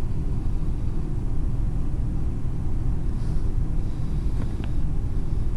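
Steady low rumble of a ship's engine-room machinery, with a couple of faint clicks about four and a half seconds in.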